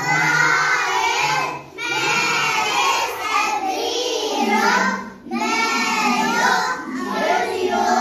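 A class of young children singing a song together in unison, in phrases with short pauses between them.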